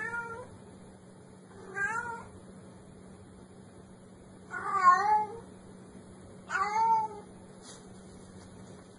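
A domestic cat meowing four times, about two seconds apart. Each meow is short, with its pitch bending up and down, and the third is the loudest.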